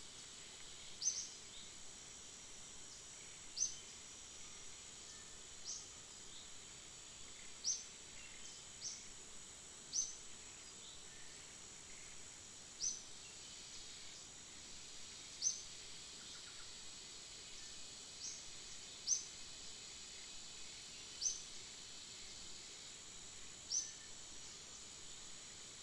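Steady high-pitched insect drone, with a short, sharp rising bird call repeated about every two to two and a half seconds.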